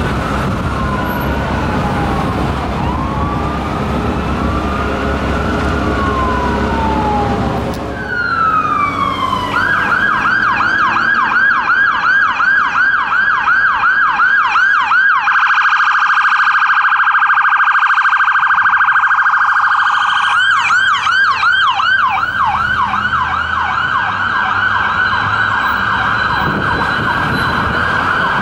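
Electronic sirens of responding fire apparatus. First comes a slow rising-and-falling wail over traffic noise. After an abrupt change about eight seconds in comes a fast yelp, then a few seconds of an even faster warble, then the yelp again.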